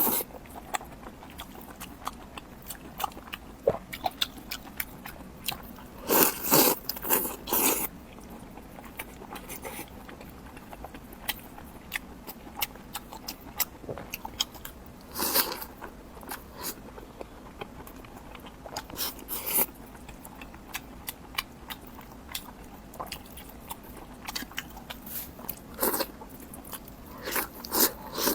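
Close-miked eating sounds: a person biting and chewing crunchy food, with a steady run of small crunches and louder bursts of crunching about six, fifteen, nineteen and twenty-six seconds in.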